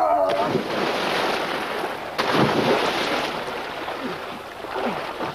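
Rushing water and wind noise, as heard from a moving boat. About two seconds in it changes abruptly to water sloshing and splashing.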